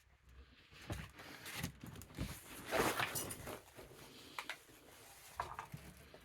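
Scattered knocks and rustling from someone moving through a cluttered room and handling things, with a louder scraping rustle about three seconds in.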